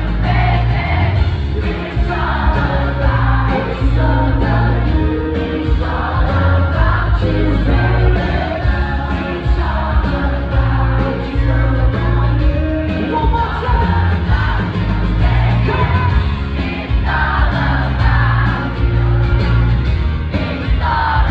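Live pop-rock band music: a male lead vocal and strummed acoustic guitar over a loud band with heavy bass, with the crowd singing along. Recorded on a phone in the audience.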